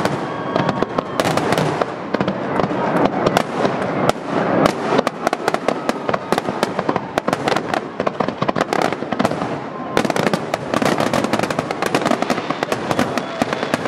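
Aerial firework shells bursting in a dense, rapid barrage, the booms running together with continuous crackling from the stars.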